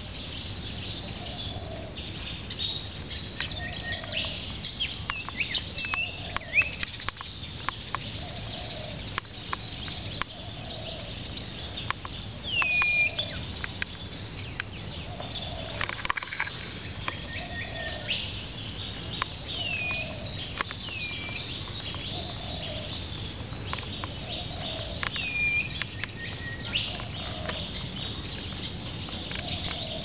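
A dove cooing, one low coo about every two seconds, while small birds chirp and twitter in the trees. One of them repeats a short swooping call every few seconds.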